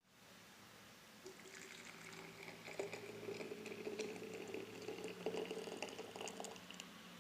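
Liquid being poured into a container: a steady trickling stream with small splashes, starting just over a second in and tailing off near the end.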